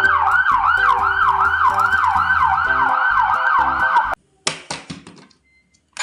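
Battery-powered toy vehicle's electronic siren sounding a fast wavering wail, about four sweeps a second, over a simple beeping electronic tune. It cuts off suddenly about four seconds in, followed by a few short clicks.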